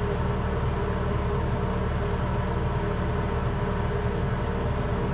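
Steady low machine hum with an even buzz, unchanging throughout.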